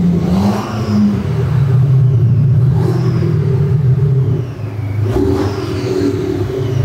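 Maxhaust active sound booster playing a synthetic sports-exhaust engine note over the idling car. The note is steady, and its pitch steps down about a second in and shifts again about five seconds in as different sound profiles (Race, Beast) are selected in the phone app.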